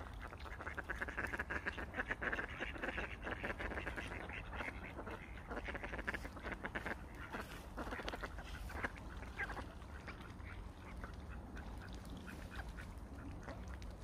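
Mallards quacking in a rapid, busy chatter of short calls. The calls are loudest in the first few seconds and thin out after about ten seconds.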